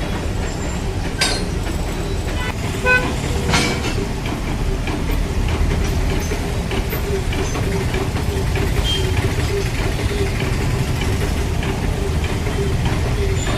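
Metal-cutting band saw machine running with a steady hum and low rumble, with a few sharp clicks and a brief horn-like toot about three seconds in.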